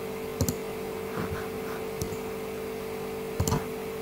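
A few short computer clicks, about half a second in, about two seconds in and a small cluster near three and a half seconds, over a steady electrical hum.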